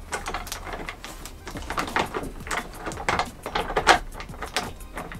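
Plastic parts of a Mainstays office chair's backrest and its ribbed spine cover being handled and fitted together during assembly: an uneven run of clicks, knocks and scrapes.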